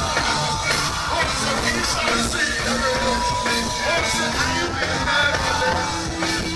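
Live reggae band playing, with a steady rhythm and a long held note in the middle.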